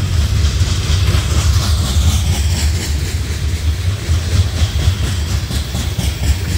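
CSX freight train of steel open-top coal hoppers rolling past close by: a steady, loud low rumble of steel wheels on rail, with a run of light repeated clicks as the wheels cross the rail joints.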